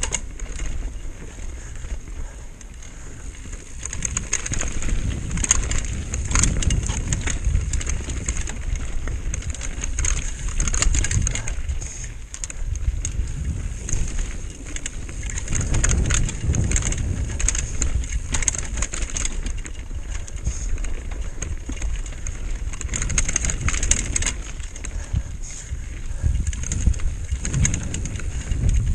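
Mountain bike descending a rocky singletrack at speed: knobby tyres rumbling over gravel and stones, with frequent clicks, knocks and chain and frame rattle over the bumps, and wind rushing over the camera microphone.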